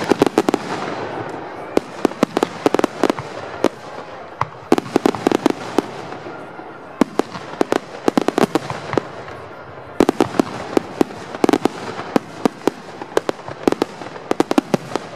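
Aerial fireworks display: volleys of many sharp bangs from bursting shells, coming in dense clusters every second or two over a continuous background rumble.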